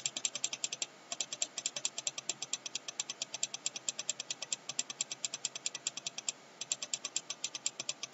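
Computer mouse button clicked rapidly and repeatedly, about eight sharp clicks a second, with two short pauses, about a second in and about six seconds in.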